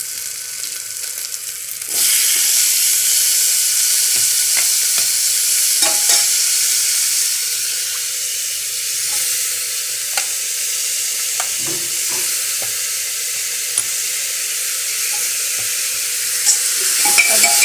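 Mustard oil sizzling in a pressure cooker as a masala with chopped tomatoes fries; the sizzle turns louder about two seconds in and stays steady. A spoon stirs it, with occasional taps and scrapes.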